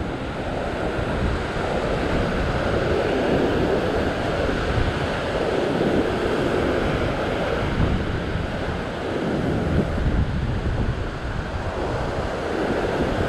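Ocean surf washing over a rock ledge, swelling and ebbing every few seconds, with wind rumbling on the microphone.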